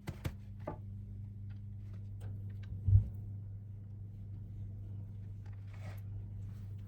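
Boiled potato being grated on a coarse grater: faint soft scrapes and light clicks over a steady low hum, with one dull thump about three seconds in.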